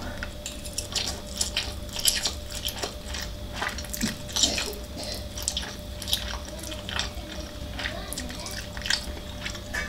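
Close-up eating sounds of Korean noodles being chewed and slurped: an irregular run of soft wet smacks and clicks over a faint steady hum.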